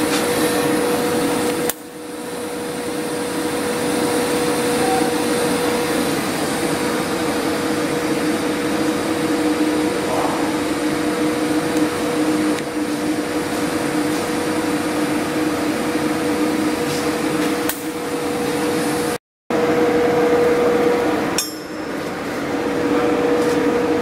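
TIG welding a 2-inch pipe: a steady hissing arc with a constant hum. The sound dips briefly about two seconds in, cuts out to silence for a moment after about 19 seconds, and dips again a couple of seconds later.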